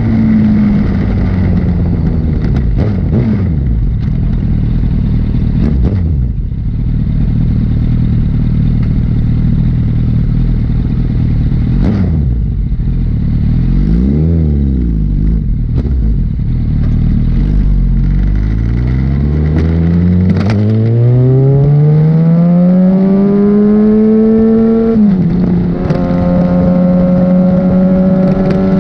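Liter-class sportbike engine on the road. It slows at first, then runs low and steady with a brief blip of revs midway. Near the end it pulls hard with a long rise in pitch, drops suddenly at an upshift, and holds a steady higher note, over wind and road noise.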